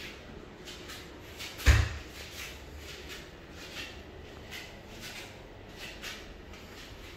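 A single loud, dull thump just under two seconds in, amid faint, irregular light clicks and knocks in a small room.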